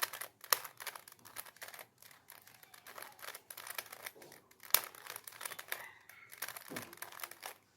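Plastic Rubik's Cube layers being turned in quick succession, a rapid irregular run of clicks and clacks with a few louder snaps.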